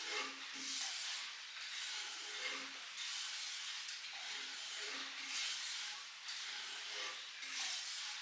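Repeated hissing rubbing strokes, about one a second: abrasive work on the knife blade. Faint music plays underneath.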